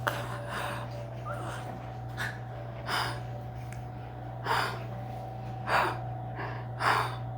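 A person gasping and breathing sharply during a chiropractic adjustment: about six short breaths, roughly a second apart, with a sharp click right at the start.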